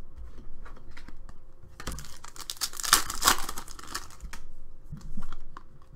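A foil trading-card pack being torn open and crinkled by hand, loudest about three seconds in, with small clicks and rustles of packs being handled around it.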